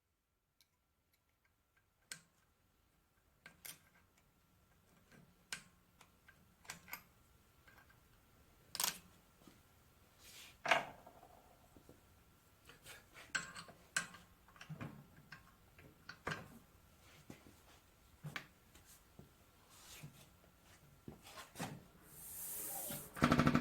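Scattered, irregular light clicks and knocks of handling noise in a small room, with a louder rushing noise and a short pitched sound near the end.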